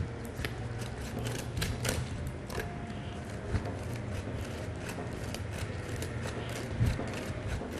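Kitchen utensils being handled during food preparation: a string of irregular sharp clicks and light scrapes over a steady low hum.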